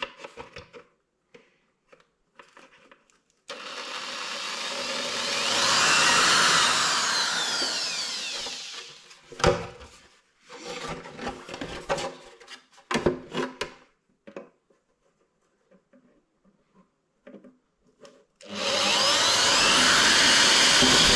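Electric drill boring holes with a 4 mm bit: a run of about six seconds with a motor pitch that rises and falls. Short knocks and handling clicks follow, then a second burst of drilling begins near the end.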